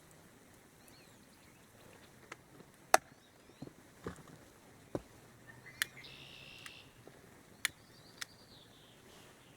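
Scattered sharp clacks and knocks, about half a dozen at uneven intervals and the loudest about three seconds in, as charcoal is handled and lit. Faint bird chirps sound in the background.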